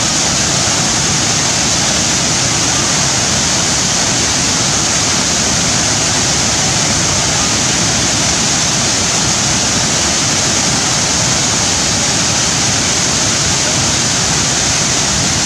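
Waterfall pouring into a pool: a steady, loud, even rush of falling water.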